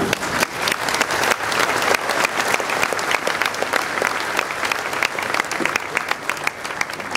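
Large audience applauding, many hands clapping.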